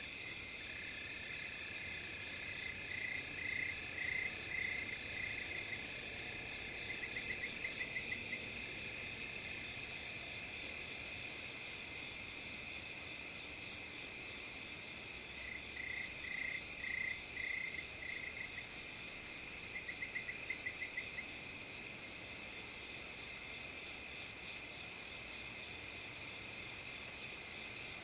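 Autumn chorus of crickets and other insects, bell crickets among them. Several steady high trills sound at different pitches, with a pulsing chirp that repeats and grows more prominent near the end.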